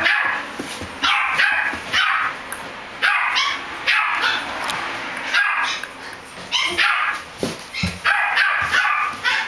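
A small dog barking repeatedly in short, high-pitched yaps, one or two a second.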